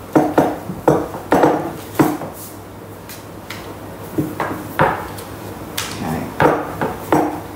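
Rolling pin clunking and rolling on the kitchen bench as balls of bun dough are rolled into ovals: a run of irregular knocks, with a lull in the middle.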